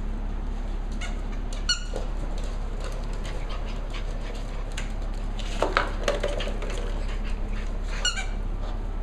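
Cavalier King Charles Spaniel puppies at play, giving a few short, high-pitched yips, with light clicks and patters from paws and claws on a wooden floor.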